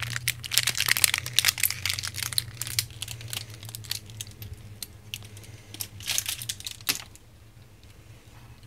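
Hands handling a small LED spotlight and its wire: rustling, crinkling and light clicks and knocks, busy at first and dying down after about seven seconds. A low steady hum lies under it.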